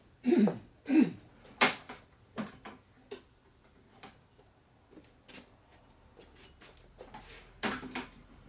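Hand tools being handled in a workshop: scattered metal clinks and knocks, three loud ones in the first two seconds, the first two ringing briefly, then a few lighter clicks and another short cluster near the end.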